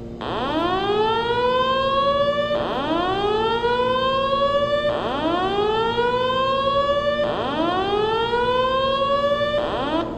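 Simplex voice-evacuation whoop tone sounding through a wall-mounted speaker: a tone that sweeps slowly upward, about 2.3 s per sweep, repeating four times with a fifth starting near the end. It is the fire-alarm evacuation signal that plays between the recorded voice messages.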